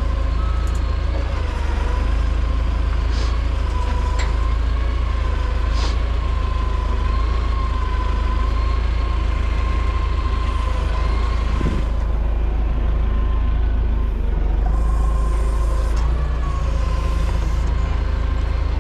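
Heavy equipment diesel engine running steadily with a deep rumble and a high, slightly wavering whine, as the machine is maneuvered to position a wheel.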